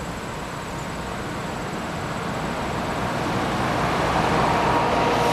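Pair of EMD FP9u diesel locomotives approaching at low speed, their engine and wheel noise growing steadily louder.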